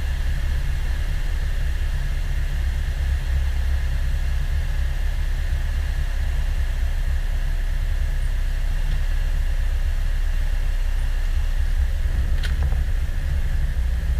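Cessna 172's piston engine and propeller heard from inside the cabin: a steady, unbroken low drone.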